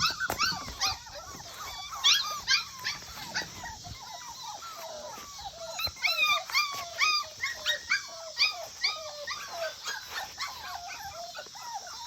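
Several young puppies crying: many short, high whines and yelps overlapping, a few every second.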